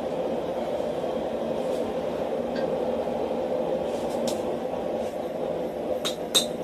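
Steady rushing noise of a running blacksmith's forge, with two ringing hammer blows on hot iron at the anvil near the end as forging resumes.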